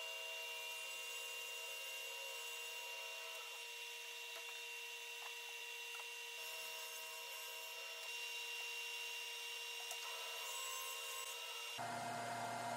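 Faint steady hum, with light rubbing and a few soft knocks as MDF sheets are slid and laid into place.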